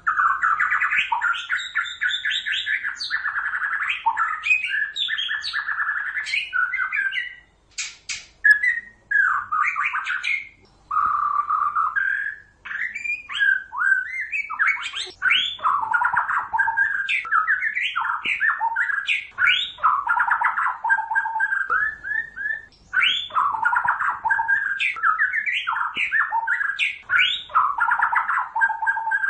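White-rumped shama singing a long, varied song of rich gliding whistles and chattering phrases, with brief pauses about eight and eleven seconds in.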